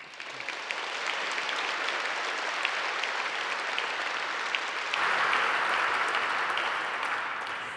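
Audience applauding, growing louder about five seconds in, then dying away near the end.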